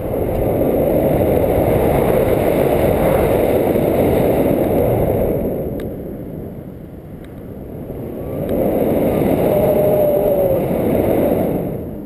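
Wind rushing over the handheld camera's microphone as a paraglider flies. It is a loud, rough rumble that eases off about halfway through, swells again, then drops away near the end.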